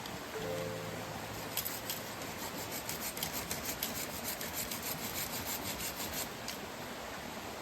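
Rapid rhythmic scraping strokes from hand work, about five a second, starting about a second and a half in and stopping near the end, over a steady hiss.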